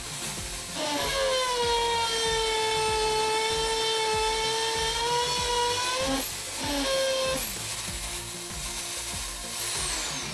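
Electric drill mounted in a drill-press stand, running with a high motor whine. Its pitch sags for several seconds and recovers as it works into chipboard, dips twice more around six to seven seconds in, then the drill is switched off and winds down near the end.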